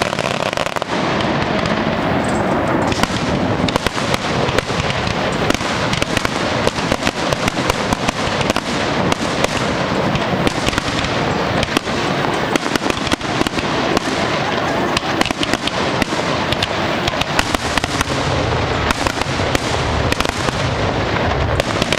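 Fireworks display: a near-continuous run of pops and bangs as aerial shells launch and burst.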